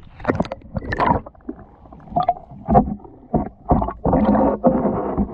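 Sea water splashing and sloshing against the side of a small boat, with irregular bumps and bursts, then a steadier rush of water noise from about four seconds in.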